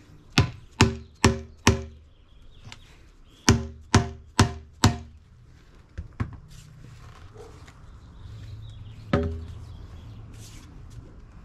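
Rubber mallet knocking a PVC cap down onto a PVC pipe: two quick runs of four blows, each with a short ring from the pipe, then one more blow about nine seconds in.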